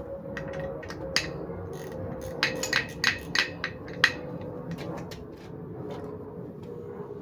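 A quick series of sharp metallic knocks and clinks, bunched between about one and four seconds in, with the loudest single knock at the end. These are hand tools being handled while bolting a light ring onto a spare tire.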